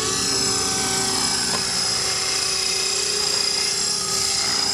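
Electric motor and propeller of an RC FPV Ranger plane in flight, a steady whine.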